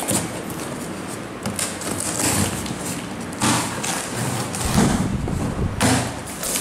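A cardboard box being opened: scissors cutting its plastic packing straps, then the cardboard flaps scraping and rustling in several bursts as they are pulled open.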